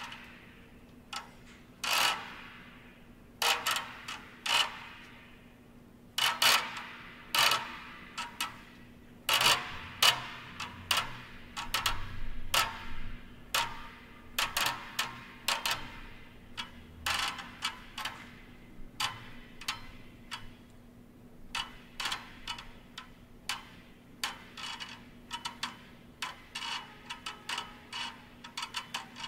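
Electroacoustic music made of sparse, irregular clicks and ticks with short ringing tails, growing quicker and denser toward the end, over a faint steady hum.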